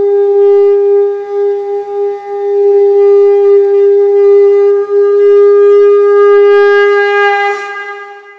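Conch shell (shankha) blown in one long, steady note that tapers off near the end.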